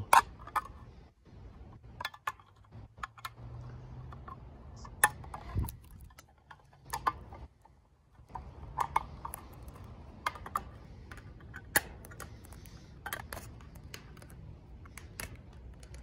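Victorinox Swiss Army knife's can-opener blade levering through a tin can's lid a small cut at a time: a series of sharp metallic clicks, irregular and about one a second, with a short pause about halfway through.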